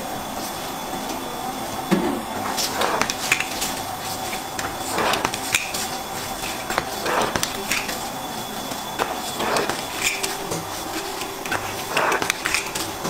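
Irregular short knocks and scrapes of a flat plastic scraper worked across a tabletop, over a steady hum.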